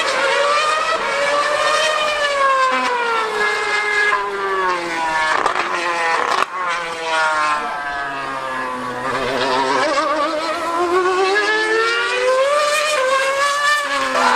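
2013 Mercedes Formula 1 car's 2.4-litre V8 screaming at high revs around the circuit. Its pitch climbs and falls over and over through gearshifts and corners, with a sharp crack about halfway in.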